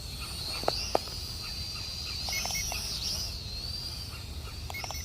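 Syma X440 toy quadcopter's motors whining in flight, the pitch rising and dipping as the throttle changes, over a low wind rumble on the microphone. Two sharp clicks about a second in.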